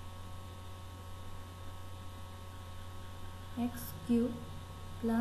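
Steady low electrical hum running without change, with a few short spoken syllables about three and a half seconds in and again just at the end.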